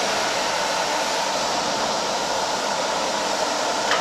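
A 200 kW medium-frequency induction heating furnace and its water-cooling system running just after power-on: a steady rushing machine noise with a faint steady whine.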